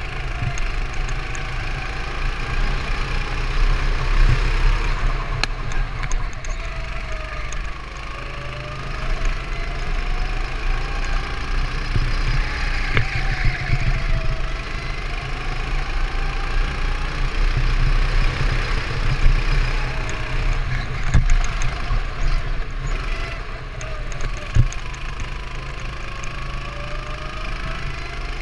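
Go-kart engine heard from onboard, its pitch rising and falling over and over as the kart speeds up on the straights and slows for the corners, over a heavy low rumble.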